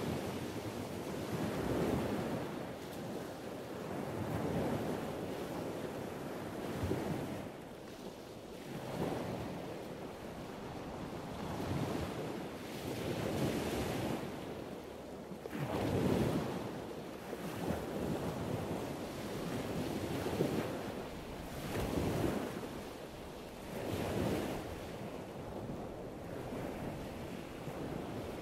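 Ocean surf ambience: rushing wave noise that swells and eases about every two seconds.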